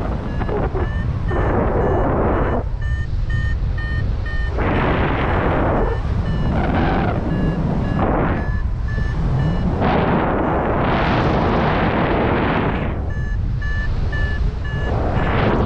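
Wind buffeting the microphone in gusts, over the short, high, evenly spaced beeps of a paragliding variometer, about three a second, the tone it gives when the glider is climbing.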